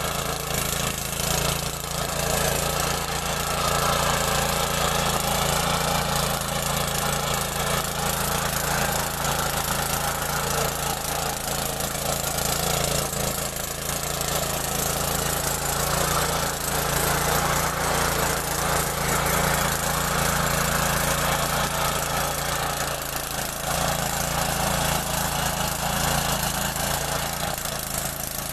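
Small farm tractor engine running steadily.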